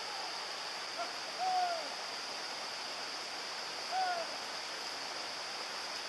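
Hunting hounds baying in the distance, giving tongue on the trail of a wild boar they have just started: three short arched bays, the loudest about a second and a half in, another near four seconds, over a steady high hiss.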